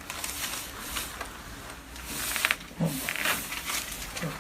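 Chiropractic adjustment of the patient's other side: rustling and breathing on the table, with a short sharp pop about halfway through as the joint is thrust.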